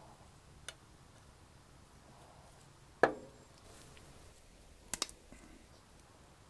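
Small metal PCP airgun valve parts handled by gloved hands, giving a few sharp clicks. The loudest comes about three seconds in and rings briefly, and a quick double click follows about five seconds in.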